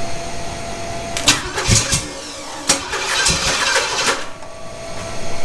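Small-block Chevy 350 V8 with a solid-lifter cam, on an engine test stand, being cranked and trying to start: several sharp pops from about a second in as it fires but doesn't settle into running.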